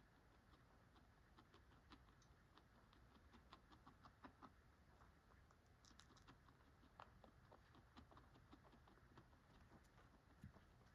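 Faint, irregular crunching and clicking of a guinea pig chewing dry pellets, several small crunches a second.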